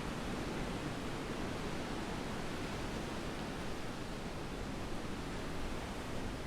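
Steady wash of sea surf on a sandy beach, an even hiss with no single wave breaking out.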